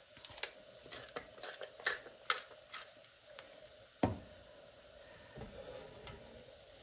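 Hand salt grinder twisted over a frying pan: a run of sharp, irregular grinding clicks for about three seconds, then a single louder knock about four seconds in.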